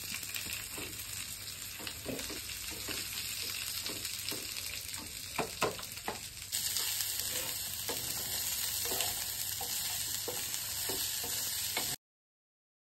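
Grated coconut, coriander seeds and dried red chillies sizzling as they fry in a little oil in a pan, roasting into the xacuti masala, with a wooden spatula scraping and clicking against the pan as it is stirred. The sizzle gets louder about six and a half seconds in, and the sound cuts off suddenly near the end.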